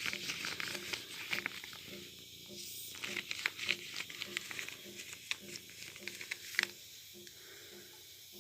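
Crinkly material being handled: light crinkling and many sharp clicks, thickest in the first few seconds, over a soft low pulsing about twice a second.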